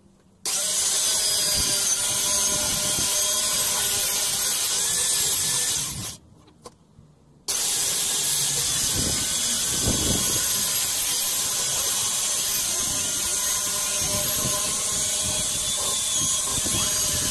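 Handheld power saw running as it cuts a board. It starts abruptly and runs steadily for about five and a half seconds, then stops and winds down. A second and a half later it starts again and runs on.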